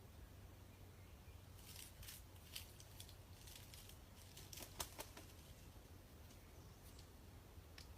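Near silence broken by a scatter of faint, dry crackles and rustling clicks from about one and a half to five seconds in, with a couple more near the end.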